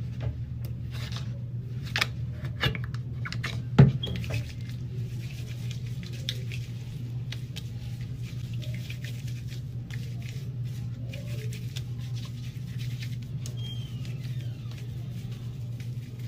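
Hands rubbing and patting on hair set stiff with Gorilla Glue spray: scattered light taps and rustling, the sharpest tap about four seconds in, over a steady low hum.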